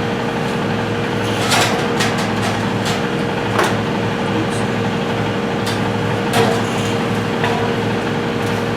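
Scattered knocks and clunks as a heavy Husky 30-gallon air compressor is shifted and tipped by hand, over a steady low hum.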